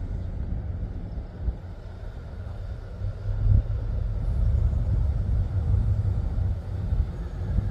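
Colas Rail Freight Class 70 diesel locomotive approaching at the head of a train of tank wagons. Its deep engine rumble grows louder from about three seconds in as it draws nearer.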